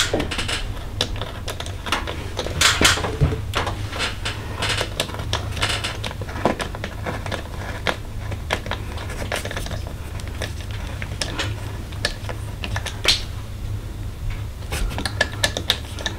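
Hand tools clicking and tapping against metal in irregular bursts as the bolts and hose clamps of a cold air intake are tightened down, over a steady low hum.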